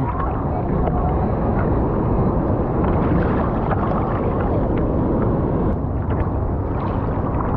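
Steady rush of churning water with wind buffeting the microphone.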